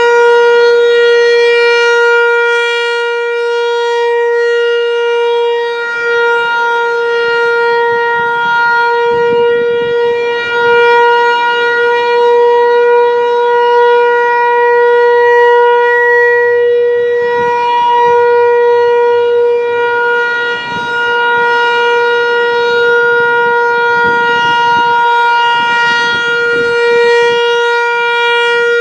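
Federal Signal Equinox outdoor warning siren sounding a steady tone, held at one pitch with a long string of overtones, its loudness dipping slightly now and then.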